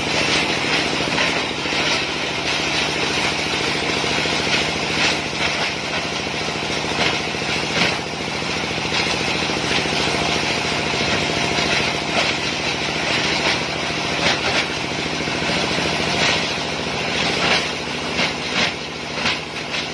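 Plastic shredding machine running steadily, with irregular sharp cracks and crunches as plastic is chopped by its blades.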